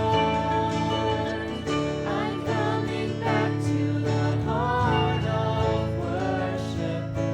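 A worship song: a voice singing a slow melody over acoustic guitar and sustained chords, the voice coming in about two seconds in.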